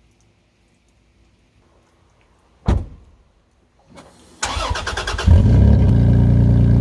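A single thump, then a car engine cranking on its starter for about a second, catching and settling into a steady idle.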